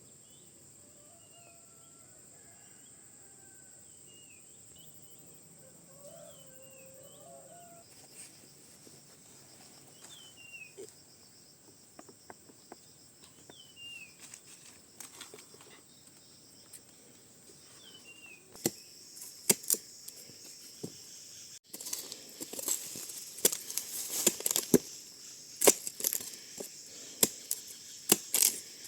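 Forest ambience: scattered short bird chirps over a steady high insect hum. About two-thirds of the way through, a run of loud crackles and snaps of dry twigs and leaves takes over.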